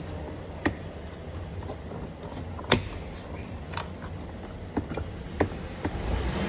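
Sharp plastic clicks and knocks, about six of them spread over a few seconds, the loudest a little before the middle: the door trim panel of a 2021 GMC Sierra 2500 being worked loose from its clips. A low steady hum runs underneath.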